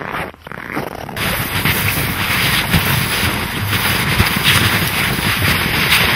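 Footsteps crunching on trampled snow. About a second in they give way to a louder, continuous rushing noise with low knocks.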